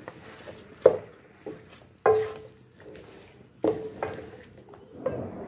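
Wooden spoon stirring chicken pieces and chopped tomatoes in a metal pan, knocking against the pan about six times. A short ringing tone follows each knock.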